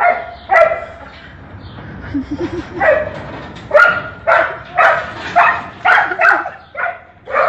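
A dog barking: a couple of barks at the start, then a quick run of barks about two a second from about three seconds in.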